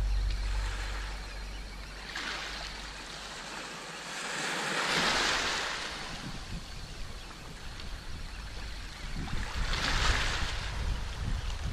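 Small sea waves breaking and washing up a pebble shore in repeated surges, the strongest about halfway through and near the end, with wind rumbling on the microphone at times.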